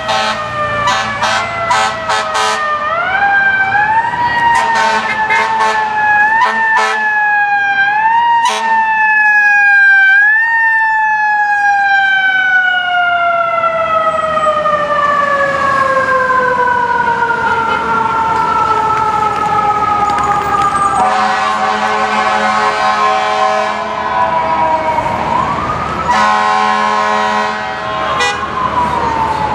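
Fire engine siren, rising in short repeated whoops for the first several seconds and then falling slowly in pitch for long stretches, winding back up near the end. Steady air-horn blasts come in about two-thirds of the way through and again just before the end.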